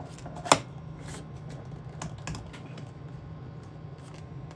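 Handling noise as the recording phone is set down: one sharp knock about half a second in, then scattered light clicks and taps, over a steady low hum.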